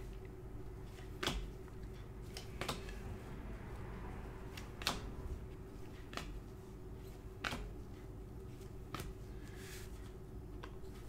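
Trading cards being flipped one at a time off a hand-held stack by gloved hands, a soft flick or snap every second or so, over a faint steady hum.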